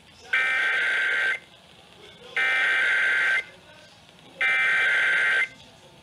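Emergency Alert System SAME header data bursts played over an FM radio: three harsh, buzzy one-second bursts of warbling digital tones, about two seconds apart, marking the start of a Required Weekly Test alert.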